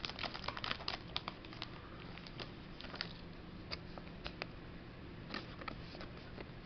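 Pokémon trading cards and booster pack wrappers being handled: light clicks and crinkles, thick in the first second or so, then scattered.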